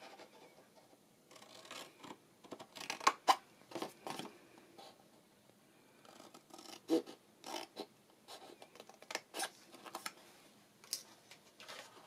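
Scissors snipping through cardstock in a series of short, irregular cuts, the loudest about three and seven seconds in.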